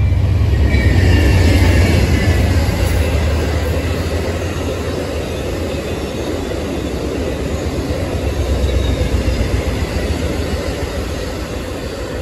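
Amtrak passenger train of Superliner bi-level cars rolling past at speed: a heavy low rumble swells in the first couple of seconds, then the steady rolling noise of the cars on the rails, with a faint high whine in the first few seconds.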